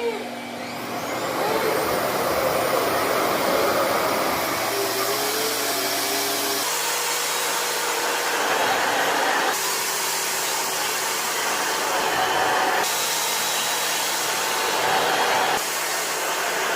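RevAir reverse-air hair dryer running steadily, its suction blower drawing the hair into the tube. The hum shifts in pitch and level abruptly several times.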